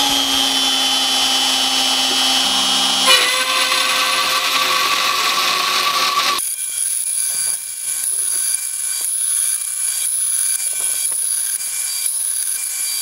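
Router spindle of a Shapeoko 3 hobby CNC running at its lowest speed setting, its end mill cutting a shallow channel into mild steel flat bar at 0.005 in depth per pass. It makes a steady whine with cutting noise, and the sound changes abruptly about 3 seconds in and again about 6 seconds in.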